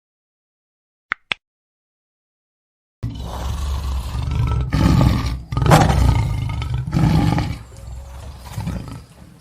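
Lion roaring: a loud, deep roar starts suddenly about three seconds in, swells in a few long pulses, then tapers off into weaker grunts near the end. Before it, silence broken by a quick pair of clicks.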